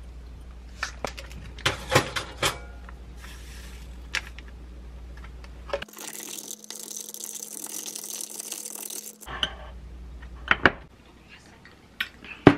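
Several sharp clicks and clinks of a hand grinder and tableware, then about three seconds of high hissing fizz from an iced drink made with kombucha powder, then a few more clinks of ice and glass near the end.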